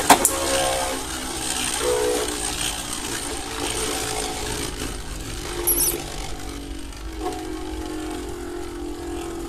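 Beyblade Burst tops (Guilty Longinus and Roar Bahamut) spinning in a plastic stadium, with a steady whirring hum. There are sharp clacks as they strike each other right at the start, and a brief clatter about six seconds in.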